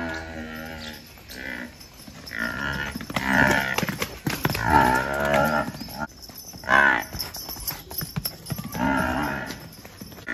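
Buffalo calf mooing about five times, some calls long and drawn out, one short call just past the middle.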